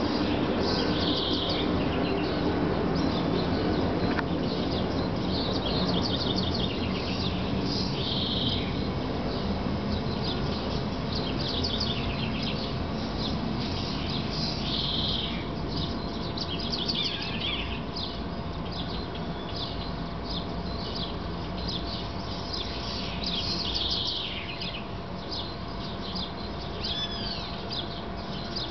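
Birds chirping again and again, with a few denser bursts of chatter, over a steady low background rumble.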